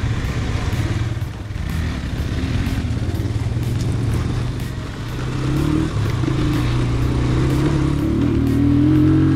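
Adventure motorcycle engine running while riding a dirt trail. From about five seconds in, the engine note climbs and gets a little louder as the throttle opens.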